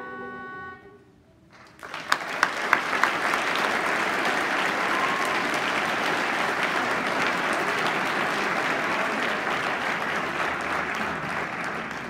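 The last held chord of the choral piece fades out within the first second. After a brief hush, the audience starts applauding, with a few loud single claps near the start, and the applause then holds steady.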